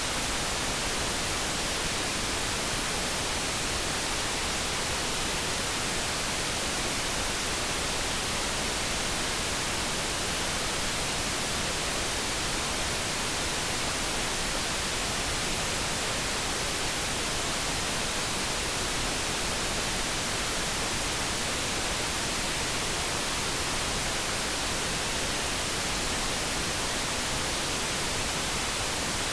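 Steady generated background noise: an even, unchanging hiss with no tones, breaks or events.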